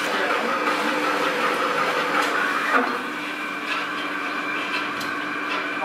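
Winery press-room machinery running with a steady hum of several held tones, with a few clinks and knocks; the loudest knock comes just under three seconds in.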